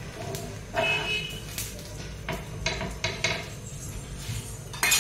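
A metal spatula and kitchen utensils clink and knock against a flat griddle pan and dishes while sandwiches toast. The sharp clinks come irregularly, about one every half second to a second, some ringing briefly.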